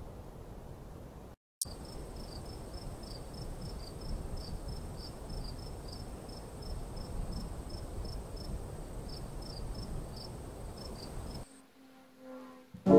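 Insects chirping: a steady high whine with short chirps repeating several times a second over a low hiss. It cuts off abruptly near the end.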